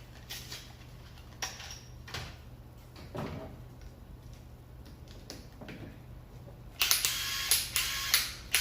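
Light clicks and knocks of parts being handled and fitted, then near the end a Makita 12V Max cordless impact wrench runs loudly in two short bursts, its hammer mechanism impacting rapidly.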